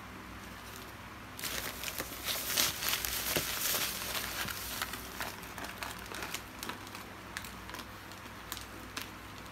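Gift wrapping paper crinkling as a present is unwrapped: a dense burst of crackling from about a second and a half in to about five seconds, then lighter, scattered crinkles.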